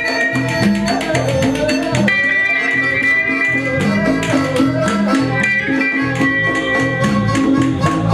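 Live blues-rock band playing a steady groove: guitars, bass, keyboards and congas with hand percussion.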